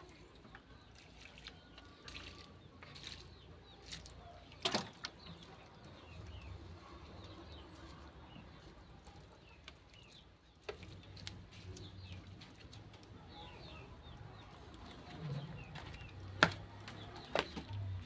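Faint bird chirps in the background, broken by a few sharp knocks; the loudest knock comes near the end.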